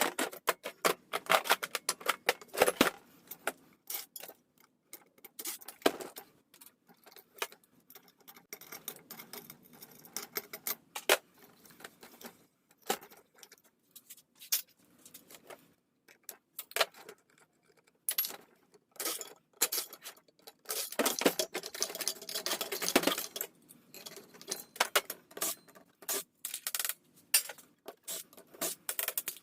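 Dense, irregular clicking, clinking and scraping of small hard scrap parts being handled and worked on, with louder clusters of knocks about halfway through and again after about twenty seconds.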